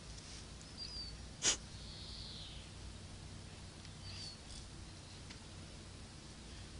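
A handheld plastic baby rattle gives one sharp click about a second and a half in. A few faint, short, high squeaks come before and after it.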